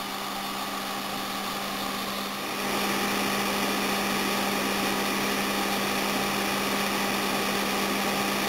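Steady electrical buzz and hiss from a home-built high-voltage supply driving current through a needle stuck in a plant leaf, with a small discharge glowing at the needle tip. The buzz gets a little louder about two and a half seconds in.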